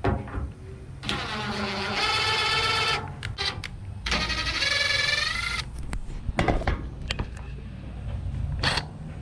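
DeWalt 20-volt cordless drill running in two bursts of about two seconds each, its whine rising in pitch as the bit works into the pickup's sheet-metal tailgate. There are a few short clicks and knocks between and after the bursts.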